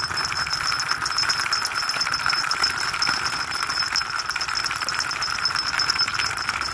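Plastic push-along flying-horse toy rolled on its plastic wheels over a stone surface, rattling with fast continuous clicking as its wings flap, with the small bell at its neck adding a steady high jingle.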